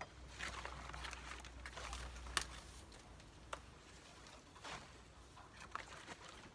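Large banana leaves rustling as they are gathered and handled, with a sharp click about two and a half seconds in and a few shorter rustles and knocks later.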